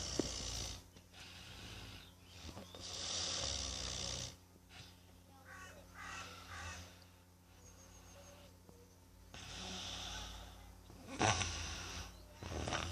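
Very loud snoring in long rasping breaths every few seconds, some strong and some fainter, with a sharp peak about eleven seconds in.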